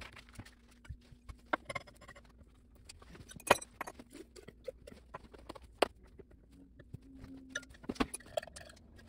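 Rapid, irregular clicks and knocks of laboratory glassware being handled as a glass funnel and a three-neck round-bottom flask are loaded, sped up with the time-lapse footage. The loudest knock comes about three and a half seconds in.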